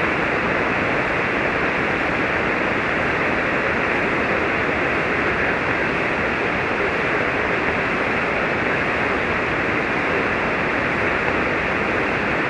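Steady hiss of band noise from an HF transceiver's receiver on 40-metre single-sideband, thin and cut off above the voice range. The calling station's voice is too weak to copy under the noise.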